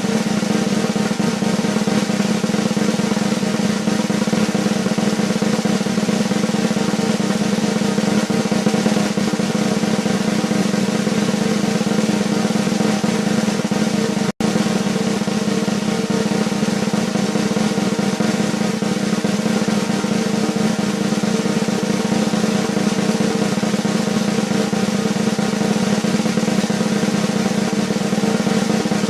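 Continuous drum roll sound effect, held steady and loud, with a split-second break about halfway through where the loop restarts.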